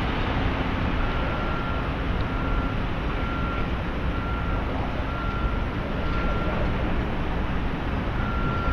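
Steady roar of traffic, with a vehicle's reversing alarm beeping about once a second, each beep about half a second long.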